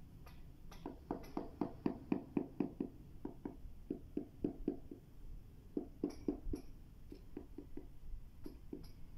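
A mallet tapping a ceramic floor tile down into its mortar bed to set and level it: quick runs of dull knocks, about four a second, with a short pause about halfway and a few last taps near the end.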